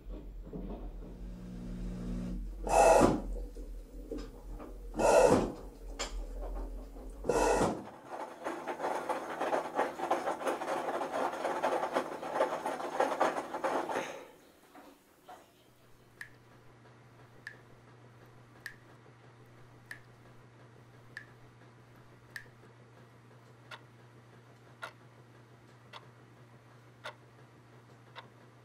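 An edited run of household machine sounds: three loud, sudden swishing hits in the first eight seconds, then about six seconds of dense, fluttering rushing noise, then a steady low hum with a soft tick about every 1.2 seconds.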